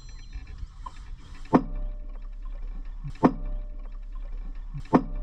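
Three sharp knocks, evenly spaced about a second and a half apart, over a steady low hum.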